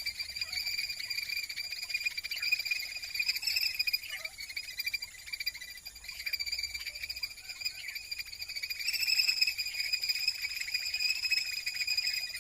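Insects, such as crickets, trilling steadily in a continuous high-pitched chorus, with a fast pulse and a brief dip about four seconds in.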